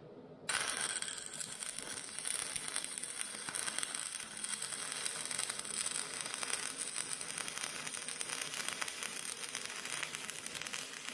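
Stick (arc) welding on steel: the arc strikes about half a second in and then runs as a steady crackle and hiss. It is laying a weld onto the reinforcing plate over the cracked stick of a Kubota U10 mini excavator's arm.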